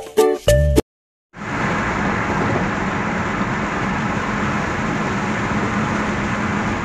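Steady road and engine noise inside a moving car's cabin, with a low hum underneath. It comes in about a second in, after a short plucked-string music clip cuts off into a brief silence.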